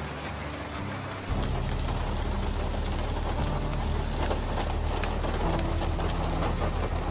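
Rain falling, then from about a second in heard from inside a vehicle: sharp drops hitting the roof and windshield over the steady low rumble of the running engine, louder than the rain outside.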